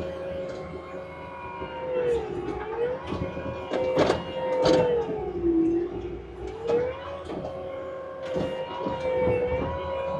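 A compact machine's engine and hydraulics whining under load, the pitch sagging and recovering several times as it works, with sharp metallic clanks and knocks scattered throughout.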